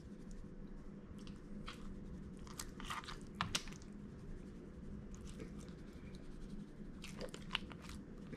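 Faint scattered clicks and crunchy taps as whole scaled fish are handled and seasoned on a plastic cutting board, over a low steady hum.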